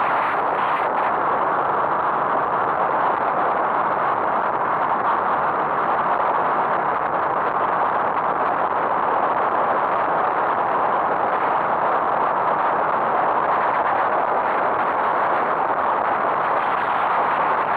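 Steady rushing noise of a vehicle on the move, road and wind noise without change.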